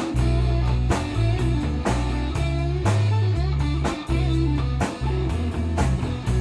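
Rock band playing: electric guitars over a held, changing bass line and a drum kit with steady drum and cymbal hits.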